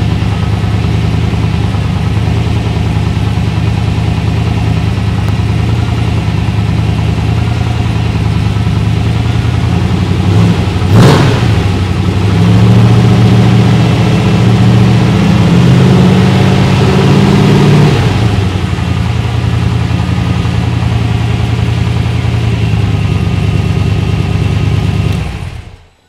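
Cobra replica's Mustang-donor engine running through its newly fitted side-exit exhaust pipes, idling steadily. About eleven seconds in there is a short sharp crack, then the engine runs louder and faster for several seconds before settling back to idle, and it is switched off just before the end, the sound cutting out suddenly.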